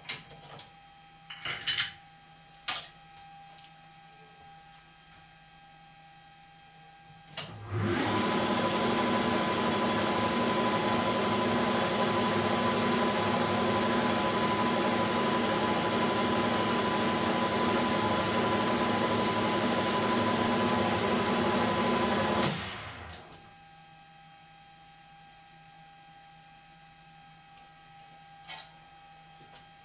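A few light clicks, then a 1972 Weiler Matador SV metal lathe is switched on and runs steadily for about fifteen seconds with a steady whine, a hand file held against the spinning shaft. It is then switched off and winds down within about half a second.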